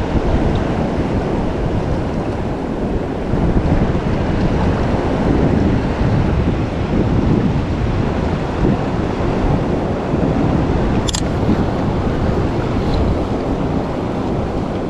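River water rushing steadily, with wind rumbling on the microphone. One sharp click about eleven seconds in.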